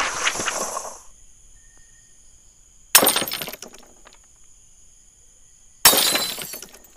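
Added end-screen sound effects of glass shattering: one in the first second as the graphic breaks apart, then two more sharp shattering hits about three seconds apart, each dying away in under a second.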